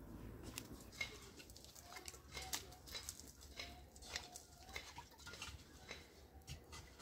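Faint scattered clinks and taps of metal kitchenware such as a kettle and teapot being handled, with brief bird calls in the background.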